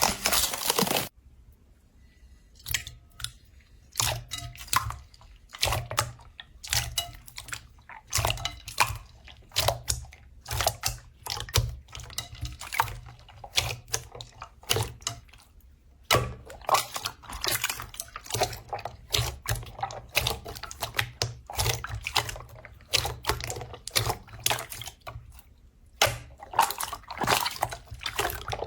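Slime being squeezed and poked by hand: irregular bursts of sticky, wet clicks and pops, with a short lull about a second in.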